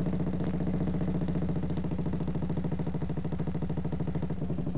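Norton 16H's single-cylinder side-valve engine running steadily in bottom gear, with an even, rapid beat.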